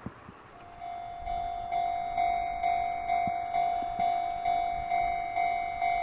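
Japanese railway level-crossing alarm starting up: an electronic ding-ding bell pulsing evenly about twice a second, warning that a train is approaching. A short click comes just before it starts.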